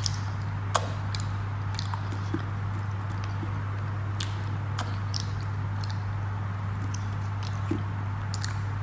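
A person chewing soft paratha and dal eaten by hand, with scattered short wet mouth clicks, over a steady low hum.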